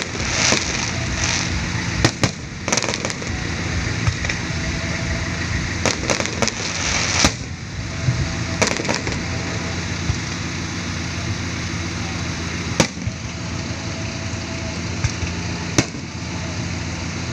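Fireworks display: aerial shells bursting over a continuous rumble, with a dense run of rapid pops and bangs for about the first seven seconds, then a few separate sharp bangs.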